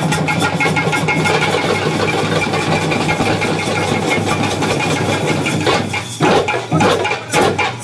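Parai frame drums and a large bass drum beaten together in a fast, dense roll. About six seconds in, the roll breaks off into a few separate heavy strokes.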